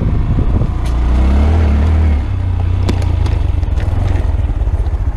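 Honda Grom's 125cc single-cylinder engine running on a dirt trail. It revs up about a second in and eases off about a second later, with a few sharp clicks and knocks.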